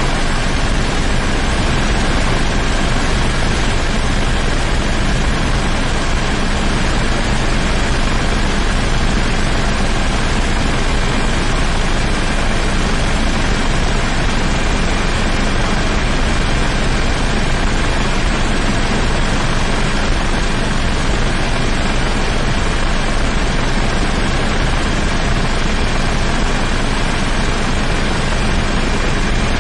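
Steady, unbroken engine drone and rushing noise of an aircraft, heard from inside its cabin.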